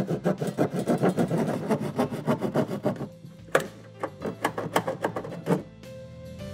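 Hand jab saw rasping back and forth through drywall in quick strokes, which thin out after about three seconds, over background music.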